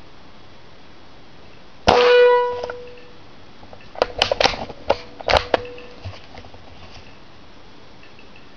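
One shot from a .22 Benjamin Marauder PCP air rifle about two seconds in, followed at once by a ringing metallic clang that dies away over about a second. Then a quick run of sharp clicks and clacks as the bolt is worked to load the next pellet.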